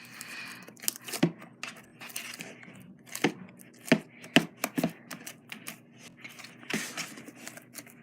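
Freshly activated glossy slime being kneaded and pulled by hand in a bowl, giving irregular sticky pops and crackles, about a dozen of them sharper than the rest.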